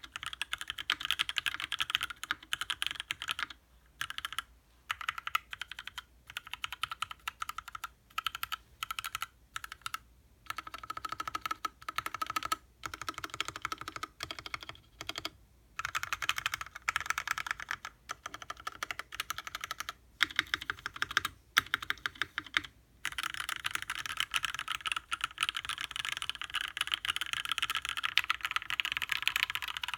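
Mechanical keyboard with lubed Gateron Ink linear switches in an aluminium case, typed on fast and continuously, with a few brief pauses between bursts of keystrokes.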